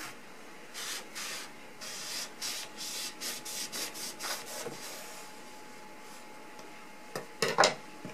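Kitchen knife sawing through a rolled microfiber cloth on a wooden cutting board: two strokes, then about ten quick back-and-forth scraping strokes. Near the end come a few sharp, louder knocks as the cut cloth is handled on the board.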